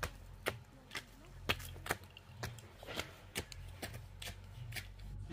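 Irregular light clicks and knocks, about a dozen, over a low steady hum.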